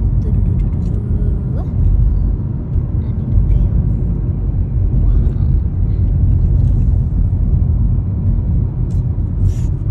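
Car driving along a road: a steady low rumble of engine and road noise, heard from inside the cabin.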